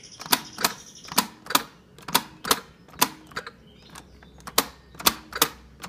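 Plastic hour button on a Thomas & Friends toy clock pressed repeatedly to step the hour hand forward. Each press is a sharp click, about a dozen of them at two or three a second, with a pause of a second or so in the middle.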